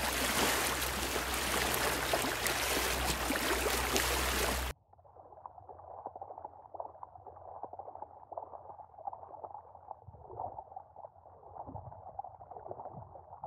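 A loud, steady rush of noise with a low hum cuts off abruptly about five seconds in. It gives way to a quieter, muffled underwater sound of churning, bubbling water, the way splashing at the surface is heard from below.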